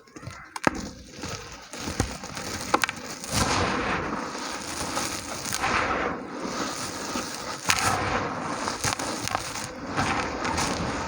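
Small dry red dirt chunks being crumbled, gritty and crunchy. There are a few sharp cracks in the first few seconds, then dense continuous crackling crumble from about three seconds in.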